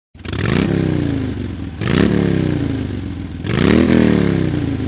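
Motorcycle engine revved three times in quick succession, each rev climbing sharply in pitch and then falling slowly back.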